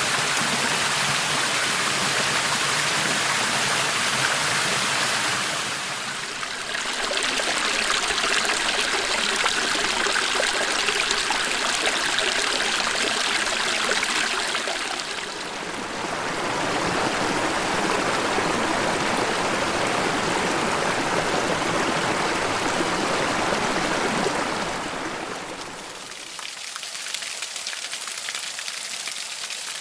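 Rainforest creek and small waterfall water rushing in a steady, even flow. The character of the rush shifts about six, fifteen and twenty-five seconds in as one stretch of water gives way to another. The last few seconds are quieter, a lighter and higher hiss with little low rumble.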